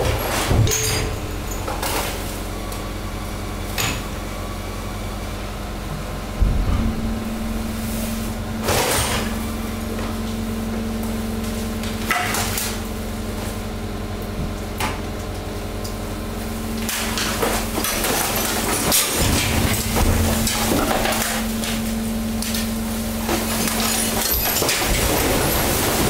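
Hydraulic waste press running at 190 bar: the pump motor hums steadily, its hum growing stronger about a quarter of the way in, while waste drops into the steel hopper with scattered knocks and clatters. In the last third comes dense crackling and crunching as the mixed waste, plastic and cardboard are crushed.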